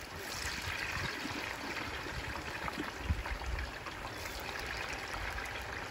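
Battered fish being lowered into hot oil in a pot, the oil sizzling and bubbling in a steady hiss as it deep-fries.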